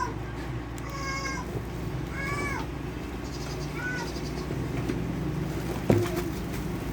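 Three short, high calls from an animal, each rising and then falling in pitch, in the first four seconds, with a single sharp knock near the end.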